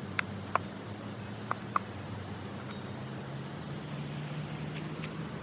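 Knife cutting vegetables by hand: a handful of sharp taps of the blade in the first two seconds, each with a short ring, then a few fainter ones, over a steady background rush.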